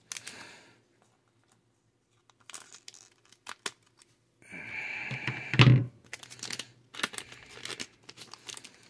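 Trading cards and their plastic wrapping being handled: crinkling and rustling with crisp clicks, in several short bouts, loudest about five and a half seconds in.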